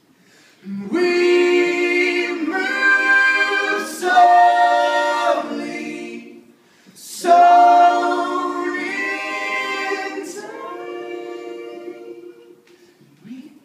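A group of men and a woman singing in unaccompanied close harmony: two long phrases of held chords that step from note to note, with a short breath between them about halfway through.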